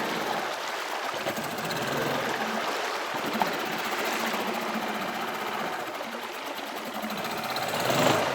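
A small boat motor running steadily, with the rush of river water.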